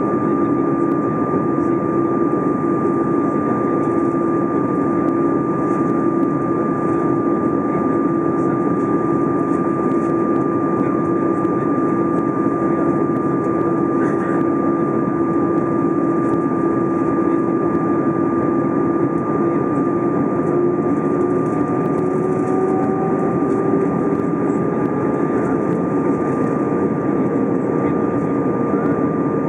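Cabin noise of an Airbus A320 airliner on descent: a steady rush of air and jet engine with a constant whine. A low hum in it slowly rises in pitch over the last third.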